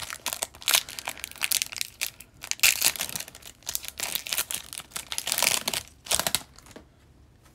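Foil hockey card pack wrapper crinkling and tearing as the pack is opened and the cards are pulled out: irregular runs of sharp crackles that stop about a second before the end.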